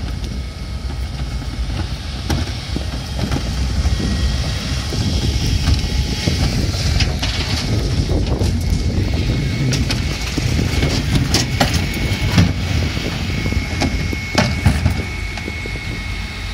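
Mercedes-Benz Econic refuse truck with a Variopress body running, under a plastic wheelie bin's wheels rumbling and rattling over the pavement, with scattered knocks as the bin is wheeled and set down.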